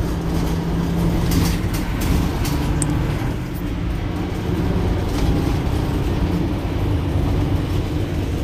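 Mercedes-Benz Citaro C2 Hybrid city bus standing at a stop with its engine idling: a steady low hum with an even droning tone.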